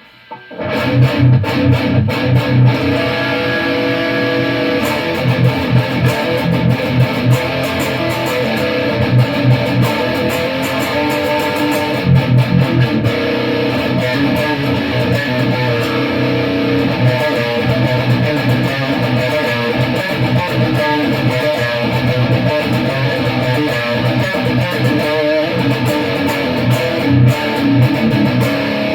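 Electric guitar played through an EVH 5150III 15-watt LBX amp head and a Mesa Boogie 1x12 cabinet with a Celestion Vintage 30 speaker, picked up by a Shure SM58: continuous riffing with heavy low notes and quick picked attacks, starting about half a second in.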